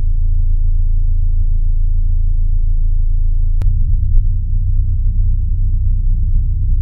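A deep, steady drone from the sonification soundtrack, made of several low pitches held together. A sharp click comes about three and a half seconds in, with a fainter one just after, and the drone then wavers a little.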